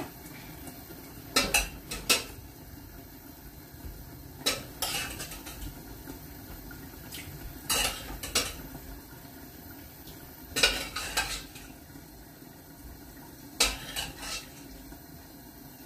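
Glass lid of a covered stew pot clinking against the pot's rim, in small clusters of two or three clinks about every three seconds, as steam from the simmering stew lifts it.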